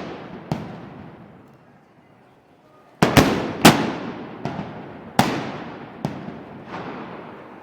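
Black-powder blank shots from festival arcabuces (blunderbusses), each crack echoing away. One shot comes about half a second in, then a short lull, then a rapid, irregular volley of about six shots.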